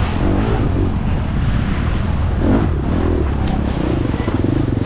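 Husqvarna FX350 dirt bike's single-cylinder four-stroke engine revving up and down while being ridden, over a rough rushing noise. Near the end it settles into a steady, even beat.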